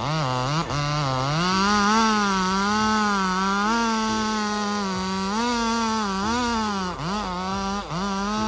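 Chainsaw engine running at high revs, its pitch wavering as the saw works, rising during the first second and dipping sharply twice near the end as the throttle eases off and picks up again.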